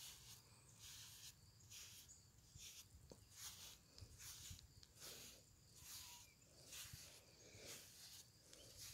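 Faint, rhythmic swishing of a brush drawn through a goat's coat, about two strokes a second.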